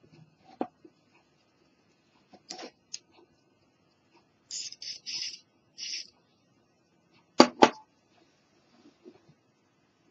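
KURE contact-cleaner aerosol can hissing in about four short spray bursts through its red extension straw, around the middle. Two sharp knocks follow, the loudest sounds, with a few faint handling clicks.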